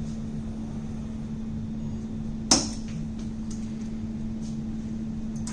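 A steady low electrical hum with a single sharp click about two and a half seconds in.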